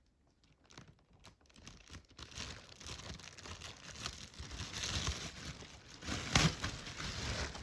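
Packing tape being peeled and torn off packaging, with crinkling of plastic and cardboard, starting about two seconds in. A sharp knock about six and a half seconds in.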